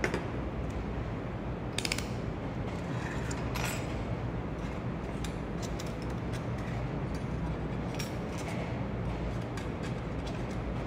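Steady hum of a running laser welding machine, with a few light clicks and knocks as the handheld welding gun and metal workpiece are handled and set in place.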